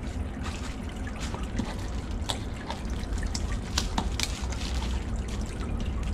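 Scissors snipping the packing tape on a small cardboard box, with scattered sharp clicks and rustles as the box and its plastic wrapping are handled. Under it runs a steady low rumble with a trickling hiss.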